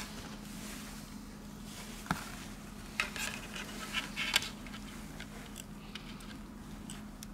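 Fingers fitting small parts into an opened smartphone: a few light clicks and taps, most of them between about three and four and a half seconds in, over a steady low hum.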